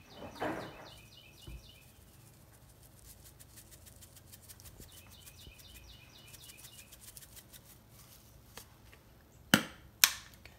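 Dried parsley flakes shaken from a plastic spice shaker jar, a long run of fine rapid ticks, then two sharp knocks near the end. A bird chirps repeatedly in the background.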